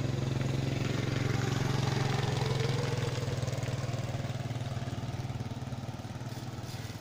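A small engine idling steadily, a low even hum that eases off a little in the second half.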